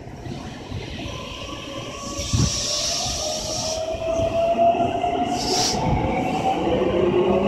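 Keikyu 1500 series electric train pulling away from the platform, its traction motor whine rising steadily in pitch as it gathers speed. A hiss sounds from about two to four seconds in, and a few wheel thuds follow.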